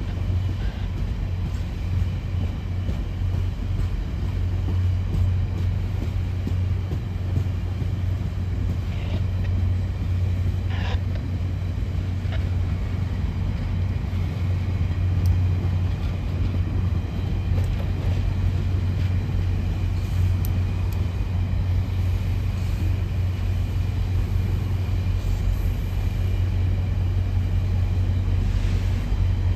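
Stainless-steel passenger cars of VIA Rail's train 1, the Canadian, rolling past: a steady low rumble of wheels on rail.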